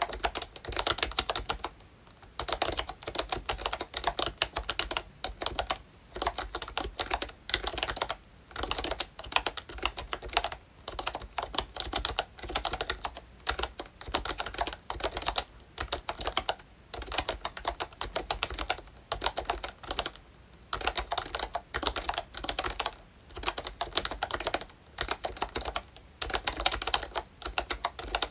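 Typing on a ROYCHE Disney Mickey Mouse retro membrane keyboard with round typewriter-style keycaps: fast runs of key clacks lasting a second or two, with short pauses between them.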